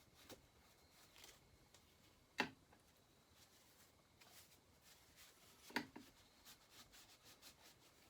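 Near silence of quiet bench work: two sharp knocks, one about two and a half seconds in and one near six seconds, with faint small clicks between, as parts or tools are handled and set down.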